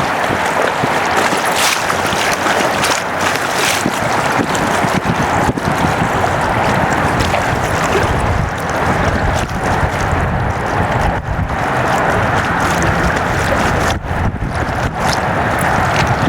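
Wind rushing over the microphone on an open river, a loud steady rush with brief dips every second or two.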